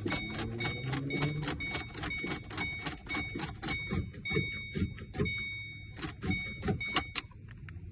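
The 2006 Ford Mustang's electronic warning chime repeating rapidly, about three to four dings a second at one steady high pitch, and stopping about seven seconds in.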